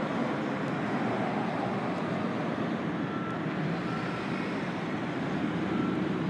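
MBTA Green Line light-rail train approaching slowly, a steady low rumble. Faint brief high tones come about halfway through and again near the end.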